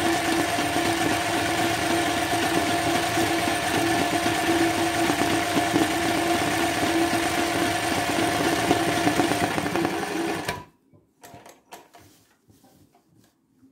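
Sewing machine stitching embroidery at a steady speed while the fabric is moved by hand beneath the needle. It stops suddenly near the end, leaving a few faint clicks of the fabric being handled.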